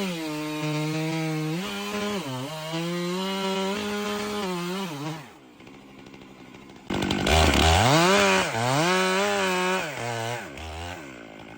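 Chainsaw running under throttle while cutting wood, its pitch repeatedly sagging and recovering as the chain bites. It drops back to a quieter, lower run about halfway through, then revs up again, loudest just after, with deep pitch swings before easing off near the end.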